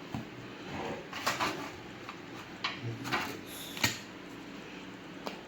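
Scattered handling noises of takeout food containers and packaging: a handful of short rustles and clicks, the sharpest just under four seconds in.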